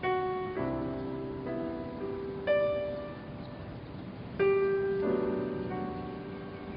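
Background music: slow, soft piano, chords and single notes struck every second or two and left to ring and fade.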